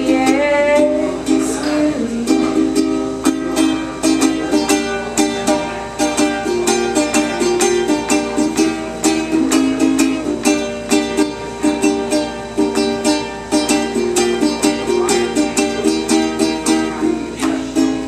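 Ukulele strummed in a steady rhythm of chords, an instrumental passage with no voice.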